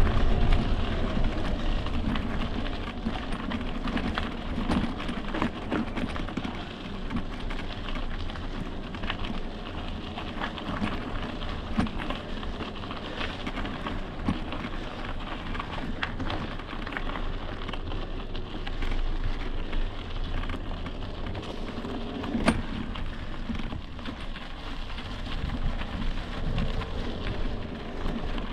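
E-mountain bike riding over rough ground: continuous crunching and rattling from the tyres and bike, with wind rumble on the microphone. There is a sharp knock about 22 seconds in.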